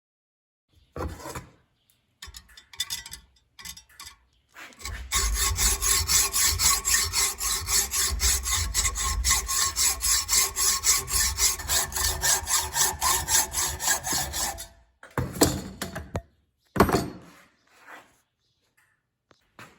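Handsaw cutting spruce lumber with rapid, even back-and-forth strokes for about ten seconds, after a few scattered knocks and scrapes of wood being handled. Two short scraping bursts follow near the end.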